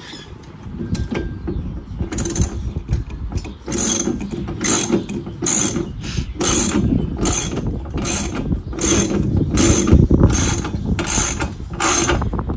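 Socket ratchet wrench being worked back and forth to tighten a bolt, its pawl clicking in a short burst on each stroke, a little faster than once a second, starting about two seconds in.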